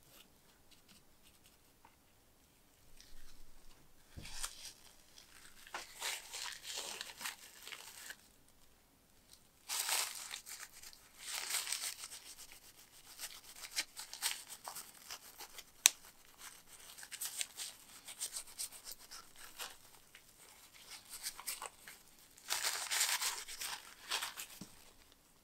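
A cloth rubbing and rustling over a monocular's knurled metal eyepiece, wiping off resin polish, in repeated spells of rubbing with short pauses between. A single sharp click stands out about halfway through.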